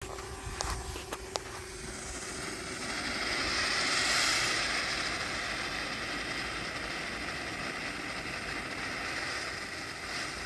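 Ground firework fountain spraying with a steady hiss that swells around four seconds in and then holds, with a few small pops near the start.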